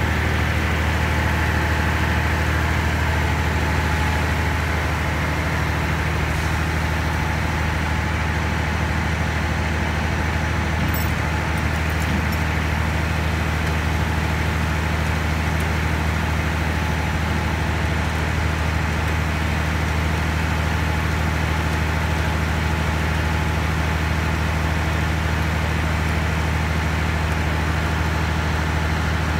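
Heavy diesel truck engine running at a steady speed, a constant low drone with no revving.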